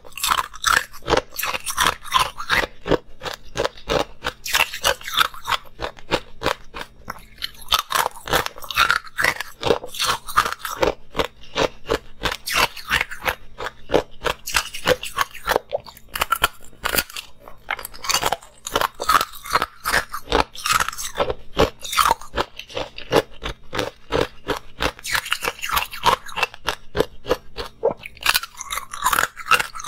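Ice cubes being bitten and chewed, a dense run of sharp crunches several a second, close to the microphone.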